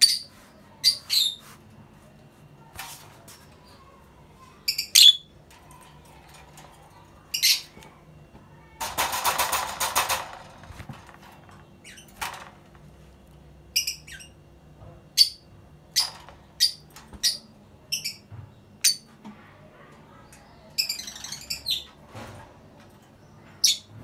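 Lovebird calls: short, sharp, high-pitched chirps and squawks, singly or in quick pairs every second or two, with a tighter run of calls near the end. About nine seconds in, a rustling noise lasts a second and a half.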